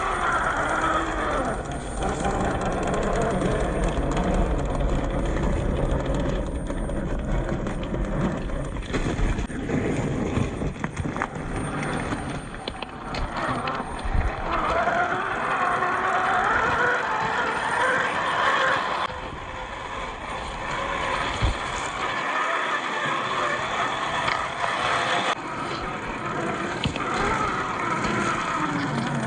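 Radio-controlled Jeep Cherokee model driving over rough ground: its motor and drivetrain whine, getting louder and softer in stretches as the throttle changes, with scattered sharp knocks from the chassis.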